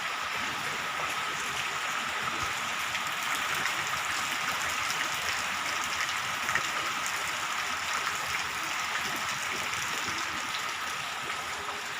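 Heavy tropical rain pouring down, a steady even hiss of falling water.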